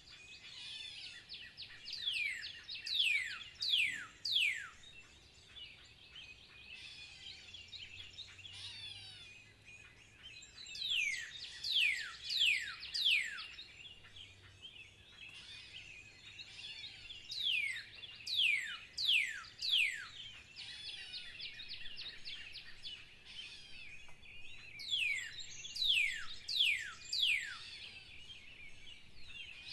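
Birdsong chorus: one bird repeatedly sings a phrase of five or six sharply falling whistled notes, about every seven or eight seconds, over a steady background of other birds chirping.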